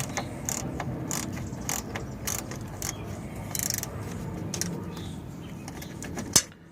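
Ratchet wrench clicking in short, irregular strokes as it turns a bolt on the airbag sensor, ending in one sharp, louder click near the end.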